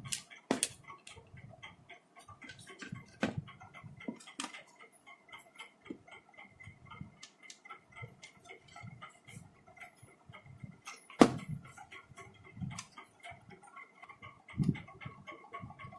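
Light, irregular clicks and taps of small metal and plastic parts being handled, with a few sharper knocks, the loudest about eleven seconds in, as screws are driven in to fix a replacement power-supply board inside a set-top box.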